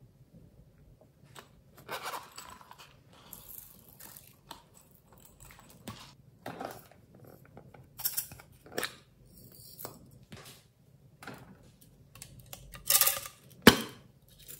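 Hands handling hard plastic containers over a glass dish of glitter-topped slime: scattered taps, clicks and rustles, the loudest a short rasp and a sharp click near the end.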